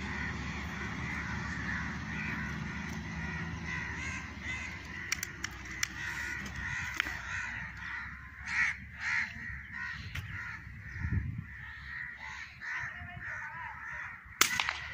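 Birds calling over a steady outdoor background, then near the end a single sharp crack of a PCP air rifle shot.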